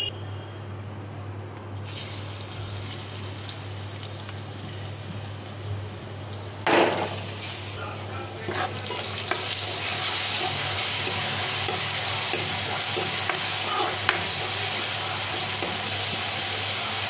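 Chopped garlic and green chillies frying in hot oil in a metal kadhai, sizzling steadily, with a sharp loud burst of sizzle about seven seconds in. The sizzle grows louder from about ten seconds in as a steel ladle stirs the mixture.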